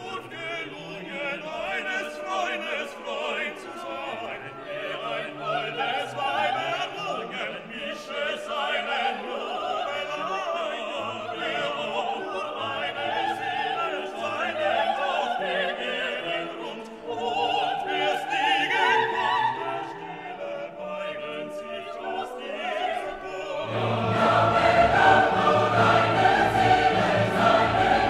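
Background music: classical vocal music, with singing voices over an orchestra, growing fuller and louder with a stronger bass about 24 seconds in.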